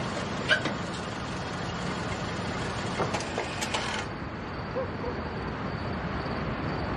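Range Rover Evoque running at low speed as it pulls up and stops, a steady low engine and tyre noise with a few light clicks.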